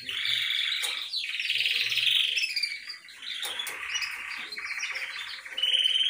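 Caged canary singing: long phrases of rapid rolling trills and chirps, with short breaks about a second in and about three seconds in.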